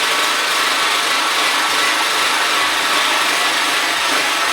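Small petrol engine of a 2 kW portable generator running steadily at constant speed, its carburettor float bowl just cleaned and resealed.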